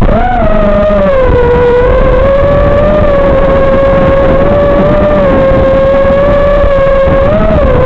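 Racing quadcopter's brushless motors and propellers whining in flight, heard through the onboard FPV camera's microphone. The pitch swells briefly at the start, settles into a steady hum, then rises and dips again near the end as the throttle changes.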